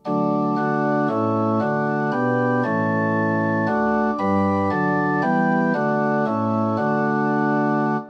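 Organ playing a hymn tune in full, sustained chords that change about every half second. It breaks off briefly near the end.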